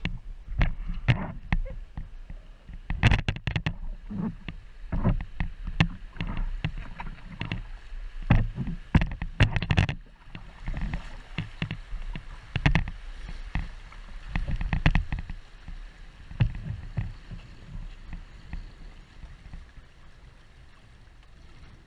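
Kayak running a shallow river rapid: irregular paddle splashes and water slapping the hull over rushing water, with a low rumble of wind on the microphone. The splashing eases off in the last few seconds.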